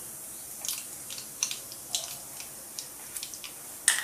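Mustard and cumin seeds crackling in hot oil in a metal kadhai: irregular sharp pops over a faint sizzle, with a louder click near the end.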